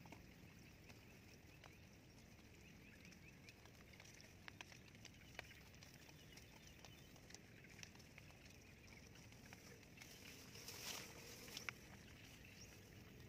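Near silence: faint outdoor ambience in an open field, with scattered soft ticks and rustles that grow a little louder and busier about ten seconds in.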